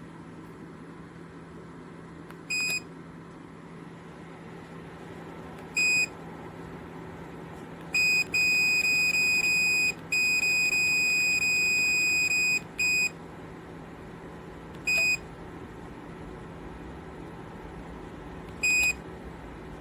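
Electronic control-panel beeps from a JIBUFI 1500W PTC space heater: single short high beeps every few seconds, and two long held beeps in the middle. The heater's fan runs steadily underneath with a low hum.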